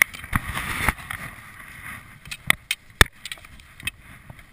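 Skis and poles being handled in packed snow: a scraping crunch with small knocks over the first two seconds, then a few sharp clacks of hard ski gear knocking together.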